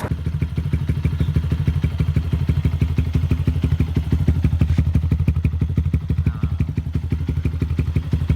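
Motorcycle engine idling steadily through an aftermarket slip-on muffler with a silencer insert fitted, giving an even, rapid exhaust pulse.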